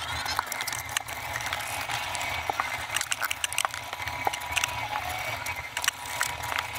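Cleaning a cabinet panel by hand with a rag and spray bottle: rubbing and wiping with many sharp, irregular clicks and knocks over a steady hiss.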